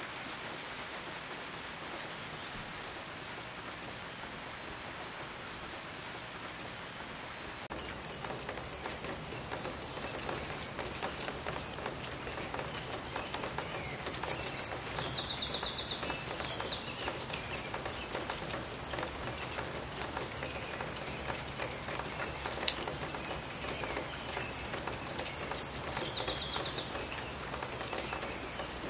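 Steady rain falling, with a small songbird singing a short high trilled song twice, about halfway through and again near the end.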